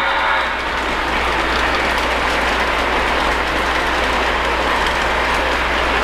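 Lionel O-gauge model steam locomotive (LionChief Plus 2.0 Pere Marquette Berkshire) running steadily around three-rail track, giving an even rolling rush of wheels on rail with a low electrical hum. A pitched tone from the locomotive cuts off about half a second in.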